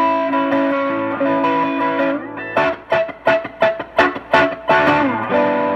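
Collings City Limits Les Paul-style electric guitar played through a Fender amp with its volume knob rolled well down. Held notes ring for about two seconds, then come a quick run of picked single notes, about five a second, and held notes again near the end.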